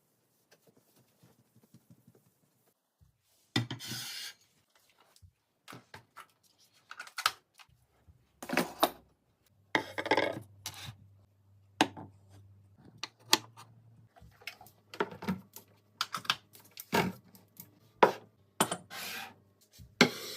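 Household items being handled and set down, with rubbing or scraping and sharp clicks and clinks, about fifteen separate sounds after a quiet first few seconds. A faint low hum runs under the second half.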